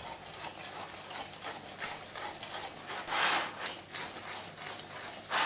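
A wire balloon whisk beats egg yolk into icing sugar and ground almonds in a glass bowl, the wires rapidly scraping and ticking against the glass. The scraping is louder for a moment about three seconds in.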